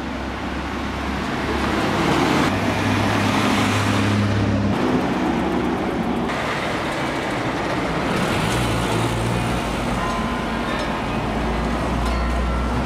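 Vintage cars driving slowly past on a cobbled street: engines running low with tyre noise over the stones. The sound changes abruptly a few times, at about two and a half, five and six seconds in.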